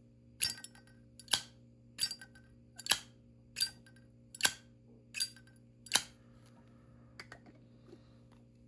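A copper Zippo lighter's lid being flicked open and snapped shut over and over: about eight sharp metallic clicks with a short bright ring, roughly one every three-quarters of a second, then a few faint ticks near the end.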